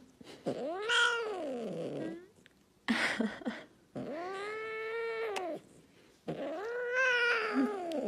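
A kitten meowing: four drawn-out meows, each rising and then falling in pitch. The second meow is short, and the others are long.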